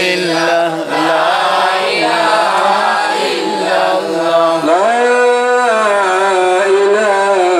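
A man chanting unaccompanied into a microphone in a slow, melodic, drawn-out style, holding long notes and gliding between pitches. About five seconds in, the voice sweeps up to a higher note and holds it for about a second.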